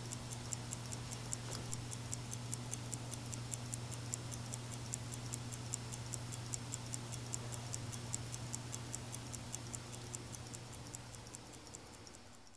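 Freshly restored 1975 Seiko 6602 pocket watch ticking steadily, about five to six ticks a second, over a low steady hum; the ticking fades out near the end.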